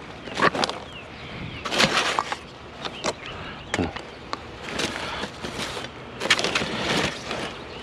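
Scrap metal being handled and broken down by hand: irregular clanks, rattles and scrapes in several short bursts.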